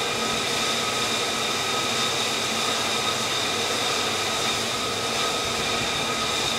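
Jet engine of an F-35C idling steadily: an even rushing noise with a high whine that holds one pitch throughout.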